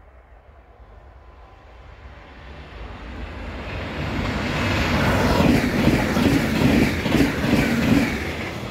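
Train passing at speed: its rumble builds over several seconds to a loud peak with a rhythm of wheel clacks on the rails, then begins to fade near the end.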